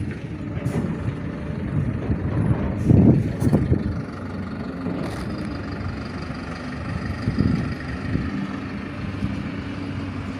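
Heavy work-truck engine running steadily, with a louder rough stretch about three seconds in.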